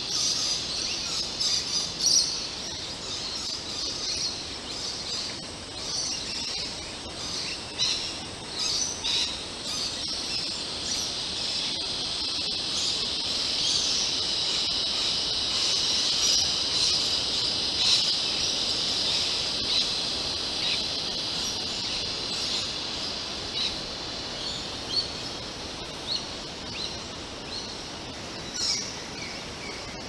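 Birds chirping in bushland: many short, sharp chirps scattered throughout, over a steady high-pitched drone that swells in the middle.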